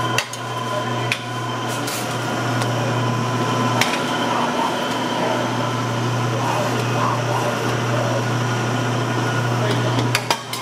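Electric deli meat slicer's motor humming steadily as its round blade spins through cured meat, with a few sharp clicks and knocks from the carriage and the meat being handled.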